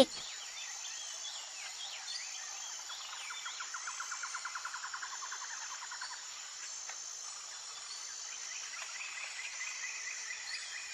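Outdoor nature ambience: insects trilling and chirping steadily, with scattered short bird-like chirps. A rapid pulsed call, insect or frog, rises and fades in the middle.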